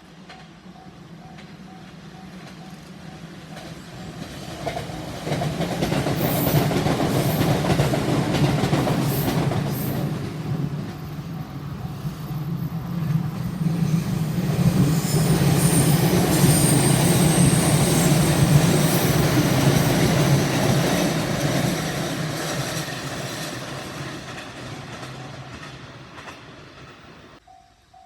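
A JR Tokaido Main Line electric train passing close by, its wheels running over the rails: the sound builds over the first five seconds, stays loud through the middle with a faint high squeal, and fades near the end. The level crossing's warning bell rings steadily at the start, is covered by the train, and is heard again as the train fades.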